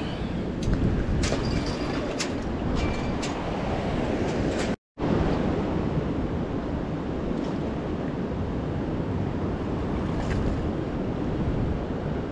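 Steady rush of spillway water, with wind on the microphone. A few light clicks come in the first few seconds, and the sound drops out for a moment about five seconds in.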